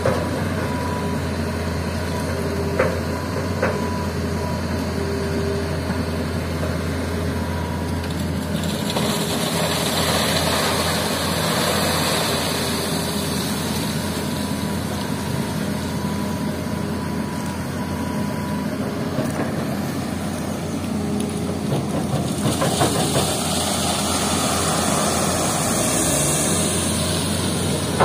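Diesel engine of a Hitachi hydraulic excavator running steadily under load as it digs and loads river sand into a dump truck, with the truck's engine idling alongside. Two spells of rushing hiss a few seconds long rise over the engine, around a third of the way in and again near the end, as the bucket works and sand and gravel are dumped into the truck bed; a couple of light clicks come near the start.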